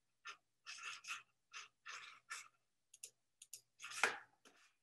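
Faint, irregular clicking and tapping at a computer, in short bursts, the loudest about four seconds in.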